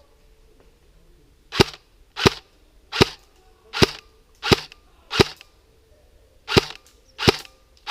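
Airsoft HK416 replica firing single shots: eight sharp cracks about 0.7 s apart, with a longer pause after the sixth.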